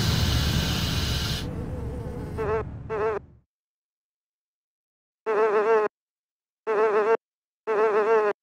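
Cartoon buzzing sound, like a fly, in short separate buzzes: two brief ones about two and a half seconds in, then after a silent gap three longer ones, each about half a second. Before the buzzing, a loud rush of noise fades away over the first few seconds.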